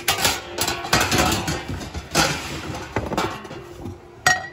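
Ceramic dishes, mugs and glassware clattering and clinking as they are handled in cardboard boxes: a string of knocks, with one sharp, ringing clink near the end.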